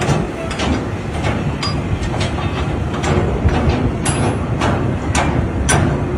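Steel lashing rod clanking as it is handled and fitted to a container, with irregular metallic clanks about two a second over a steady low rumble.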